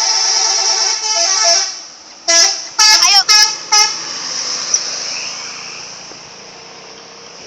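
Agra Mas bus's telolet horn playing its tune. It starts with a long multi-tone chord that steps in pitch after about a second and a half, then comes a quick run of short toots, one of them sliding up and down in pitch. The sound dies away over the last few seconds.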